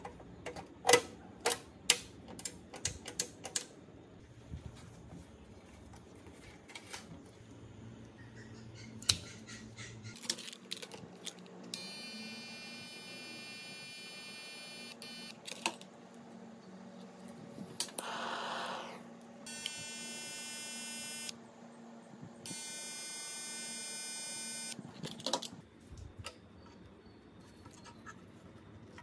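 Sharp clicks and taps of metal parts being handled in the first few seconds, then an electric soldering gun buzzing steadily in three stretches of a few seconds each, with a short hiss between the first and second.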